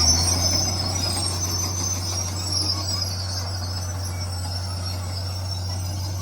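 Komatsu D41 crawler bulldozer running, its diesel engine making a steady low drone. A high, thin squeal sits over it and fades out about three seconds in.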